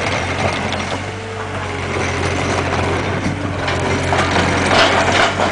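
Takeuchi compact track loader's diesel engine running steadily as the machine moves, with some clanking near the end.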